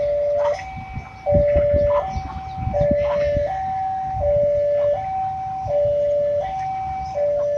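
Railway level-crossing warning alarm sounding a steady two-tone electronic signal, switching between a higher and a lower pitch about every three-quarters of a second, as it does while the crossing is closed for a train. Beneath it runs the low rumble and wheel clatter of the passenger train that has just passed.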